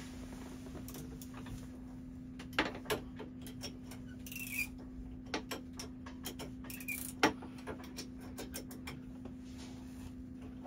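Irregular clicks and ticks of a wrench turning an Atomic 4 engine's crankshaft by hand at the output coupling, with a few louder knocks and a brief squeak near the middle, over a steady low hum. The engine is being rolled over in gear to bring number one cylinder to top dead centre.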